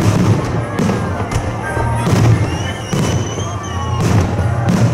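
Festive fireworks bursting, a sharp bang roughly every second, over loud music.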